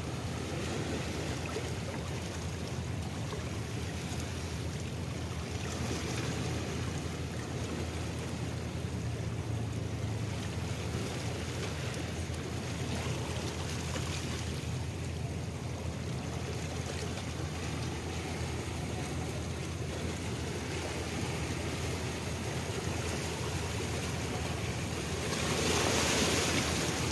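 Small waves washing at the harbour shore and wind on the microphone, over a steady low rumble, with a louder rush of noise near the end.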